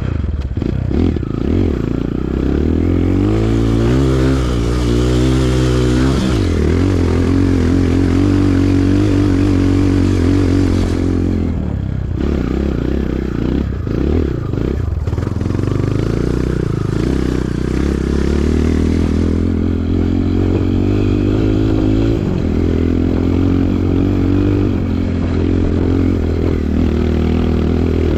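Kawasaki KLX 140G trail bike's single-cylinder four-stroke engine running under riding load, its pitch rising and falling as it revs and shifts. The engine note eases off briefly about twelve and fifteen seconds in.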